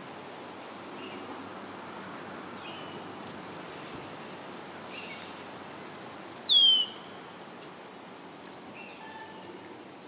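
Osprey calling: a few short, high, falling chirps, then one loud, sharp call dropping in pitch about six and a half seconds in. A faint, rapid, high ticking runs through the middle, over a steady background hiss.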